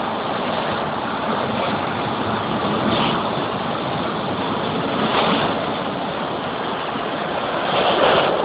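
Automatic car wash spraying water over the car, heard from inside the cabin: a steady rushing hiss that swells three times as the spray passes.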